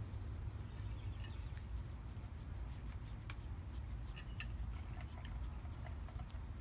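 Fingers scratching through a cat's fur, with faint scattered clicks and rustles over a steady low rumble.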